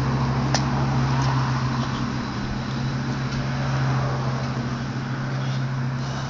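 Steady low mechanical hum, a constant low drone with a hiss over it, like an idling engine or machine. A single faint click about half a second in.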